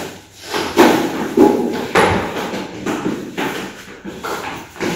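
Irregular knocks and thumps, a child's hurried footsteps, with muffled voices between them.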